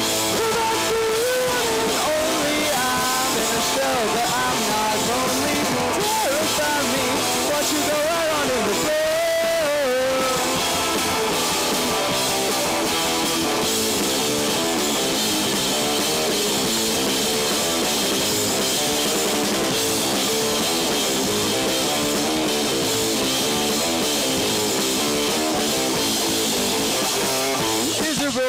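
Live rock band playing an instrumental passage with electric guitars, bass and drums. For about the first ten seconds an electric guitar lead plays bending notes over the band, then the band carries on in a steady, even rhythm.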